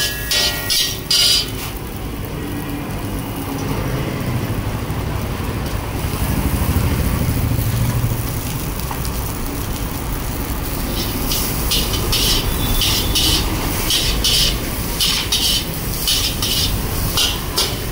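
A metal spatula scraping and striking a wok in quick repeated strokes, about two to three a second, as noodles are stir-fried. The strokes come briefly at the start and again through the last third. A steady low traffic rumble runs underneath and swells in the middle.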